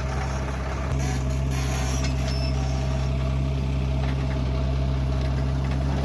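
Heavy diesel engine running steadily, getting louder about a second in.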